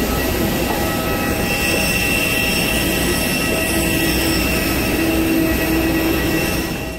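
Loud, steady aircraft turbine whine and rumble on an airport apron: several steady high tones over a low rumble. It cuts off suddenly at the end.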